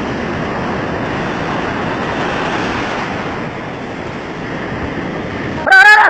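Breaking surf and churning foam, a steady rushing wash of sea water around the microphone. Near the end a man shouts loudly.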